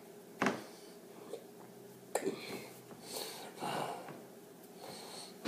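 A man making wordless mouth and breath sounds: a sharp pop about half a second in and another just after two seconds, then a few short breathy noises.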